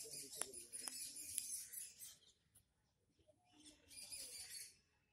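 Small birds chirping and twittering in thin, high calls, a spell of about two seconds at the start and another of about a second past the middle, with a couple of faint clicks early on.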